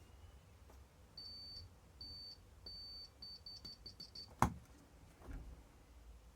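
Digital multimeter's continuity beeper sounding as the probes touch the circuit: three short beeps, then a quick run of shorter beeps, showing continuity in the torch's wiring. A single sharp knock follows about four and a half seconds in.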